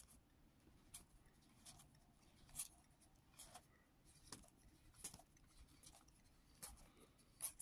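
Babylon 5 collectible card game cards being thumbed through by hand one at a time. They make faint, short clicks and slides about once a second.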